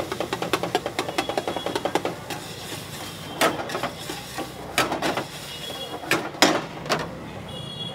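Flat metal spatula chopping and scraping frying onions, chillies and ginger in a black wok: a fast clatter of metal strikes on the pan for about the first two seconds, then single louder knocks about a second apart.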